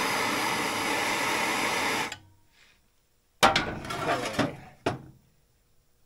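Handheld gas torch flame hissing steadily while it heats a Loctite-locked fastener on a snowmobile chain case, cut off suddenly about two seconds in. About a second later comes a loud metallic clank, followed by several lighter clinks and knocks of hand tools on the case.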